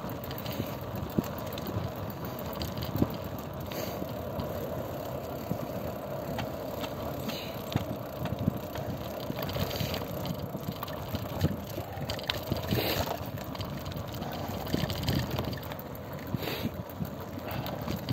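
Steady noise of a vehicle on the move, with many small rattles and knocks.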